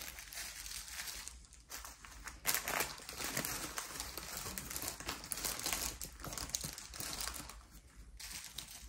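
Small plastic zip-lock bags of diamond painting drills crinkling and rustling as they are handled and sorted by hand, with two short lulls.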